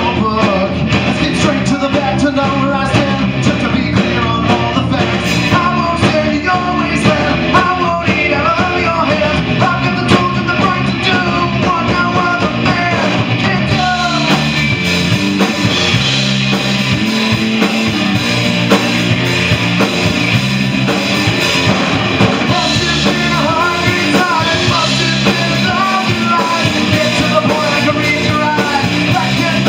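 Rock band playing live: distorted electric guitar, electric bass and a drum kit in a steady, loud rock groove.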